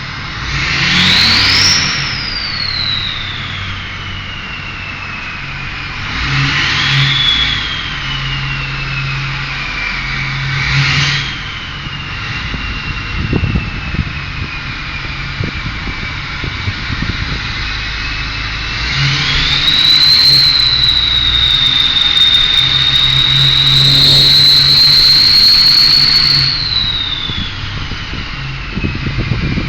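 Ford 6.0 Powerstroke V8 turbo-diesel revved, its Powermax Stage 2 turbocharger whistling loudly. Three short blips make the whistle shoot up sharply and wind down slowly. A longer rev of about seven seconds holds the whistle high and steady before it spools down.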